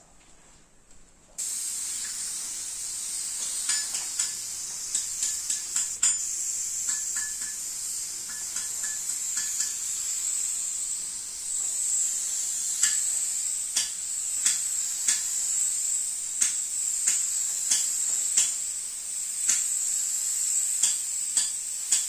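Gravity-feed compressed-air spray gun hissing steadily as it sprays metallic car paint, starting about a second in, with many short sharp spurts over the hiss, more frequent in the second half.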